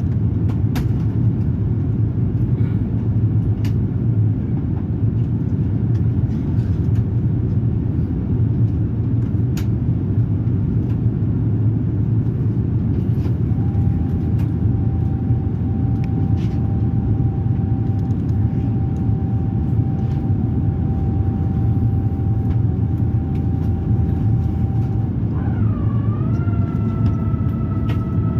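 Steady low rumble of an Airbus A350-900's cabin in descent, airflow and engines. A thin whine comes in about midway; near the end it swoops and settles at a higher pitch.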